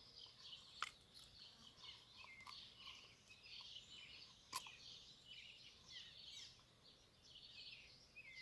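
Faint birds chirping in many short calls, with two small sharp clicks, one about a second in and one past the middle.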